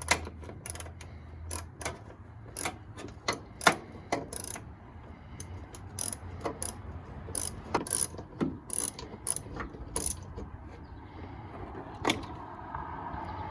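Hand socket ratchet clicking in short, irregular swings, working through swivels and an extension to loosen the 13 mm bolt holding a Jeep Wrangler JK's factory hood latch.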